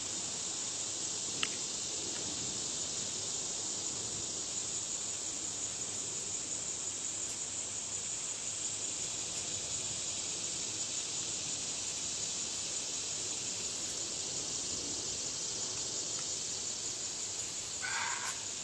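Steady high-pitched insect chorus, like crickets, droning evenly, with a single short tick about a second and a half in and a brief bird call near the end.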